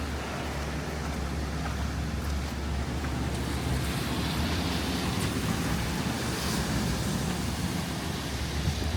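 Rainy city street ambience: a steady low traffic rumble under a wash of noise from rain and wet roads, swelling in the middle as a vehicle passes.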